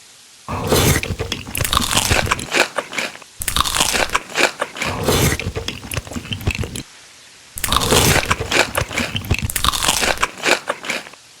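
Crunchy food being bitten and chewed: dense crackling crunches in three long stretches, each starting and stopping abruptly, with a pause of under a second before the last.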